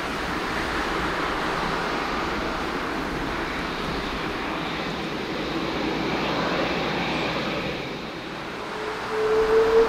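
Jet engines of a twin-engine Airbus widebody airliner at takeoff, a steady rushing noise with faint slow pitch glides. About nine seconds in, a loud steady single tone starts and carries on.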